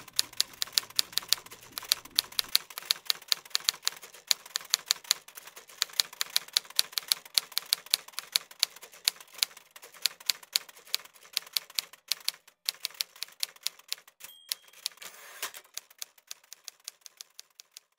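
Manual typewriter being typed on steadily, about five keystrokes a second. A little past three-quarters through, the margin bell dings once and the carriage is swept back, then the typing resumes.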